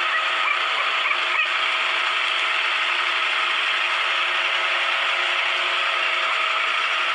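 Steady whirring machine-like noise with a few faint held tones, even and unchanging throughout.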